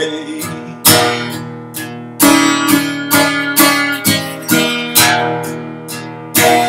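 Acoustic guitar strummed in a steady pattern, about two strokes a second, with the chords ringing on between strokes.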